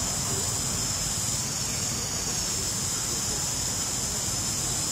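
Steady outdoor background noise: an even, high-pitched hiss over a low rumble, with no single sound standing out.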